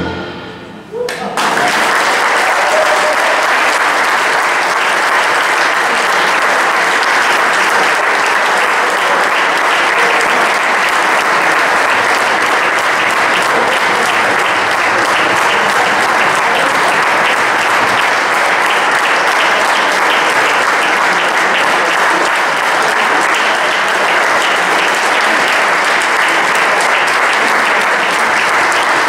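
The last note of a string orchestra with double bass and flute dies away in the first second. The audience then breaks into steady, sustained applause.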